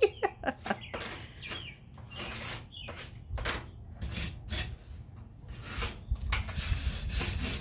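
Hand tool rasping over stacked stone in short, irregular strokes, clearing excess mortar that squeezed out between the stones; the strokes come faster and run together near the end.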